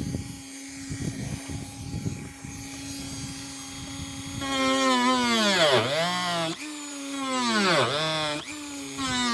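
A power drill's motor revved repeatedly, its pitch dipping and rising each time as the trigger is eased off and squeezed again, starting about halfway through. Before that, a steady hum with a few light knocks.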